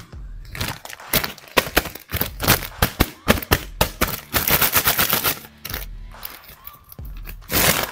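Thin clear plastic bag crinkling and crackling in a rapid, irregular run as an action figure is handled and pulled out of it, with a louder rustle near the end.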